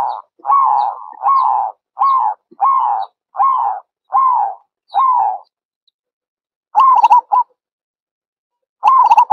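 Zebra dove cooing: a run of about eight short, slightly falling coos, roughly one every three-quarters of a second. After a pause come two quick stuttering bursts of coos near the end.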